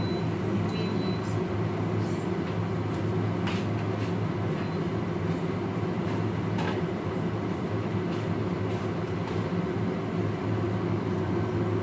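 Steady low machine hum with a few faint ticks and taps.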